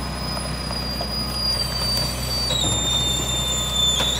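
Mack MR garbage truck's diesel engine running under a rear-loader packer cycle, with a high-pitched steady squeal from the hydraulic packer mechanism that drops to a lower pitch about two and a half seconds in.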